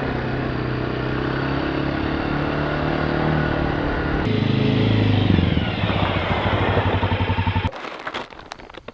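A small motor vehicle's engine running steadily, then slowing with falling pitch and shutting off near the end, followed by a few clicks.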